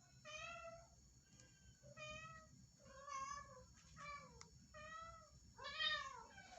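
A domestic cat meowing repeatedly, about once a second, in short calls. The last call near the end is the loudest.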